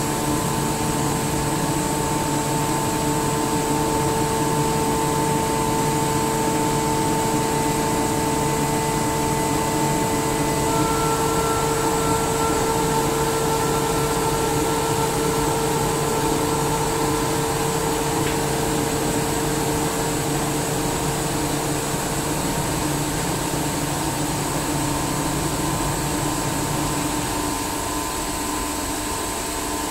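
SCR Comp SCR50M rotary screw air compressor running, a steady machine noise with a constant whine over it. Near the end its deeper hum drops away and the sound gets slightly quieter.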